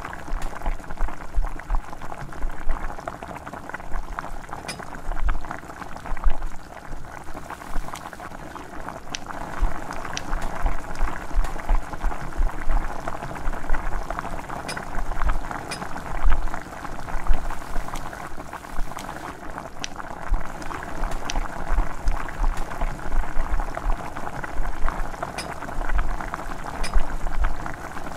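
Chicken pieces with tomatoes and chillies bubbling in their juices in an aluminium pot, with a metal spoon stirring and clinking against the pot now and then.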